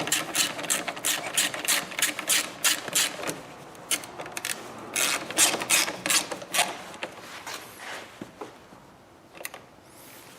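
A hand ratchet clicking as it tightens a headlight's mounting screws: quick even runs of clicks, about five a second, for the first few seconds, then a second run after a short pause, trailing off into a few scattered clicks.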